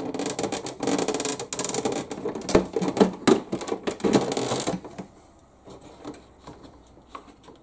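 Plastic canopy of an RC model boat being pushed down onto its plastic hull: a run of clicks, knocks and scraping of plastic on plastic that stops about five seconds in.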